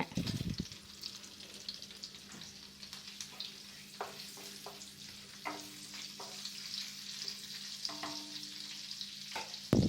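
Whole spices (cinnamon, cloves, cardamom) sizzling in hot oil and butter in a pan, with a soft thump at the start and a few light clicks as they are stirred.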